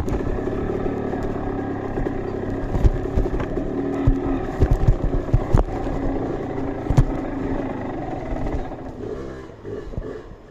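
Trail motorcycle engine running steadily, with scattered knocks and clatter, fading out near the end.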